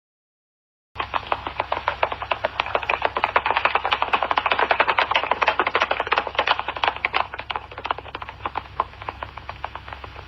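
Horse galloping: rapid hoofbeats start suddenly about a second in, grow louder, then fade away, as if the horse passes by. A steady low hum runs under them.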